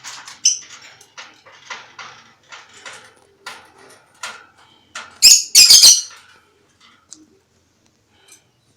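A pet lovebird making short, harsh chirps, about two a second. A much louder cluster of sharp noises comes about five seconds in, then it goes mostly quiet.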